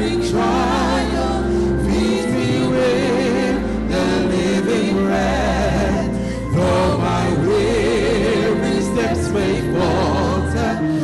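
A gospel hymn sung by three lead singers on microphones with a congregation joining in. The voices sing with a wide vibrato over long held instrumental chords that change every second or two.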